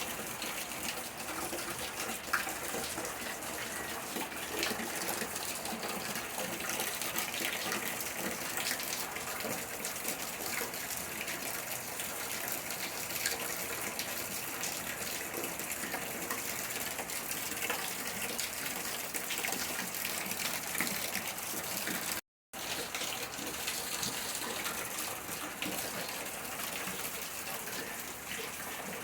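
Steady rain falling, with water running and splashing. The sound cuts out for a moment about 22 seconds in.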